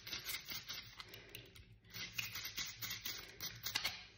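Toothbrush bristles scrubbing a silver bangle with quick, scratchy strokes, with a brief pause just under two seconds in.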